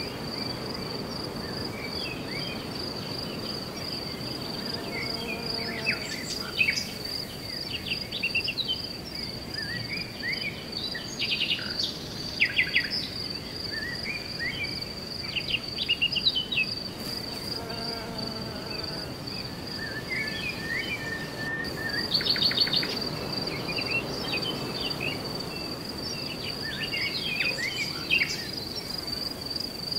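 Tropical lakeside ambience: a steady, high-pitched insect drone under birds chirping and trilling on and off, with louder bursts of calls about a third of the way in and again past two-thirds.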